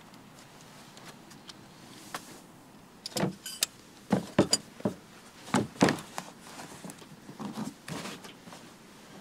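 Hollow plastic knocks and clatter from a hard-shell kayak's storage hatch as gear is put in and the hatch lid is handled and pressed shut. There are about half a dozen sharp knocks between about three and eight seconds in.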